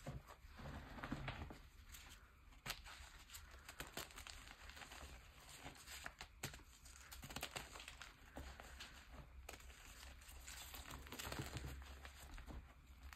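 Hands crushing and crumbling pink gym chalk powder and reformed chalk chunks: soft, crunchy, powdery crackling made of many small irregular crackles, faint throughout.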